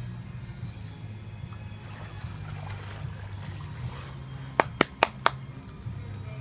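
Water lapping and trickling at the edge of a dock, over a steady low hum. About four and a half seconds in there is a quick run of four sharp clicks.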